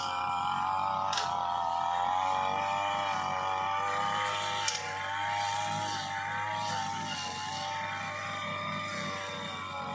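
Backpack brush cutter's small petrol engine running steadily while cutting grass. Its pitch rises and falls slightly, with a couple of sharp ticks about one and five seconds in.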